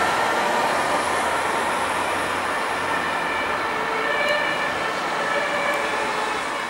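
Steady road-traffic noise of cars passing on a wet road, with faint, distant two-tone emergency sirens of fire service vehicles moving away.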